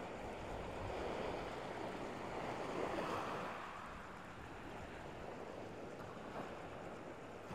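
Small waves breaking and washing up a shingle beach, with one swell building and peaking about three seconds in.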